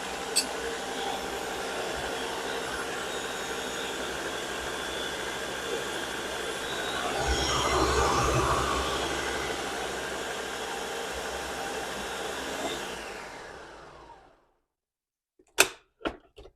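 Electric blender running steadily while blending juice, then switched off and spinning down about two seconds before the end, followed by two sharp clicks.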